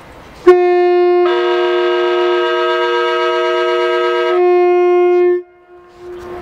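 Two-tone air horn of a Mark 4 driving van trailer sounded close by as a 3-tone: the lower note alone for under a second, then both notes together for about three seconds, then the lower note alone again for about a second before cutting off. The train's running noise follows as it moves off.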